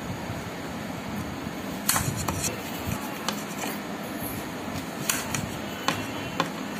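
Small kitchen knife cutting apple pieces on a plate, a few sharp clicks as the blade taps the plate, over a steady background hum.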